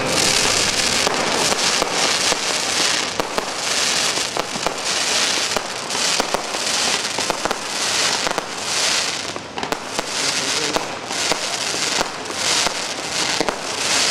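Fireworks going off in quick succession: a dense run of sharp bangs and crackles over a hiss that swells and fades about once a second.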